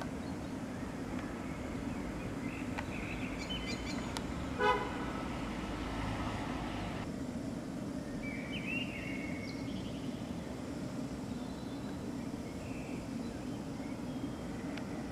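A single short horn-like toot about four and a half seconds in, over a steady low drone.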